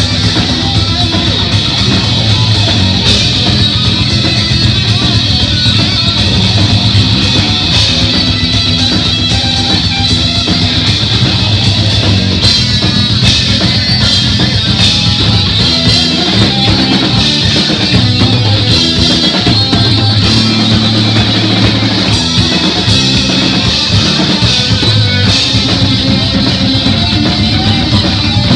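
Live heavy metal instrumental: a distorted electric guitar played close to the microphone, with bass and drums behind it, loud and continuous.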